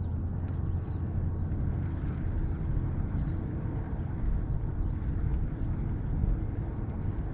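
Steady low rumble of wind and water around a small boat on open water. Faint, light ticks come in over it from about a second and a half in.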